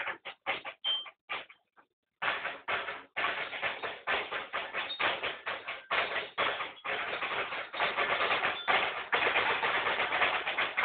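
Drum corps percussion practice: drums struck in quick, sharp strokes, stopping briefly about one and a half seconds in, then resuming as dense, continuous playing.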